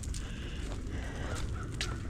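Footsteps on a dirt trail with a harsh bird call, crow-like, sounding in the background.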